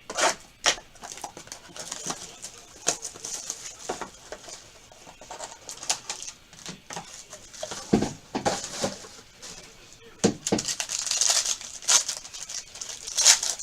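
Trading card packaging being handled and opened: irregular crinkling and rustling of wrapping, with scattered clicks and taps.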